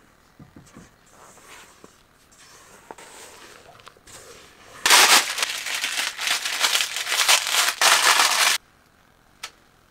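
Kitchen handling noise: a few quiet clicks and knocks of bowl and utensils, then about four seconds of loud, crackly crinkling and rustling as hands work in a round baking tin, stopping abruptly.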